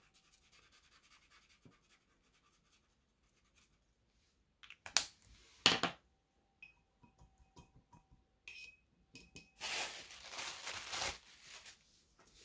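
Faint scratch of an acrylic paint marker's nib dabbing on card, then two sharp clicks about five seconds in and a louder scratchy rustle near the end.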